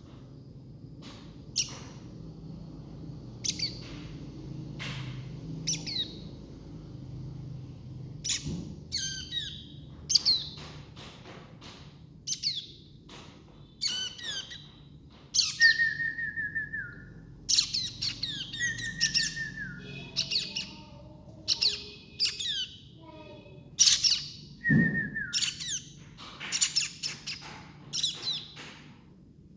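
Baby birds chirping: many short, high chirps, sparse at first and coming thicker and louder after about eight seconds, over a faint low steady hum.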